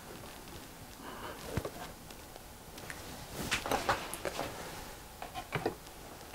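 Quiet handling sounds at a table: scattered light clicks and rustles of someone moving, thickest in the middle, then a few small knocks as a plate is gripped and lifted from a wooden table near the end.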